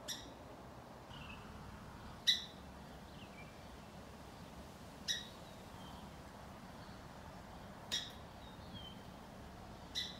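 A small songbird calling: five sharp, harsh calls about two and a half seconds apart, each followed by a faint down-slurred note.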